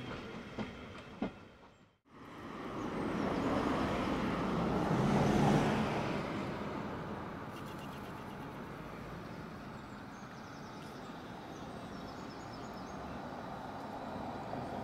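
Passenger coaches rolling past on the line, with a few sharp clicks of the wheels over rail joints. The sound cuts off abruptly, and a steady rushing noise follows that swells for a few seconds, then eases to a lower, even level.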